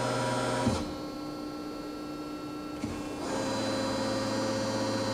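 Cincinnati CNC hydraulic press brake running through a programmed cycle: a steady hydraulic pump and motor hum. It swells into a louder, brighter whine of many high tones for under a second at the start and again from about three seconds in.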